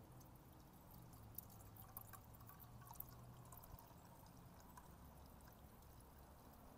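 Faint trickle of liquid poured in a thin stream from a small stainless steel pot into a steel camp cup.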